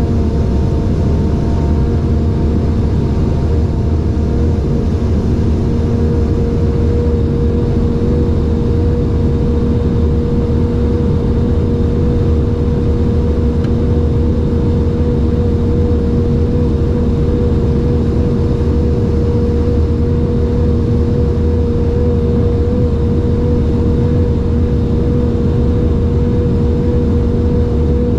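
Audi R8 twin-turbo V10 heard from inside the cabin, cruising flat out at about 220 km/h: a steady, unchanging engine drone over a heavy low rumble of road and wind noise.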